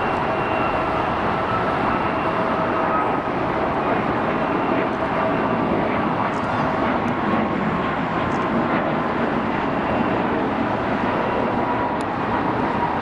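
Boeing 737 MAX jet's CFM LEAP-1B turbofans at takeoff power as the airliner climbs out: a loud, steady jet roar with faint high fan tones running through it.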